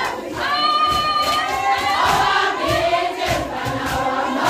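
A group of young women singing a Zulu song together in held, ringing notes, with a beat of low thuds from the dancing beneath.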